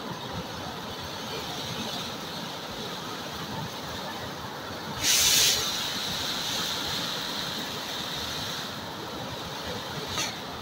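River water rushing and churning over a barrage spillway ledge, a steady noisy rush. About halfway through a sudden loud hiss lasts about half a second, and a second, shorter one comes near the end.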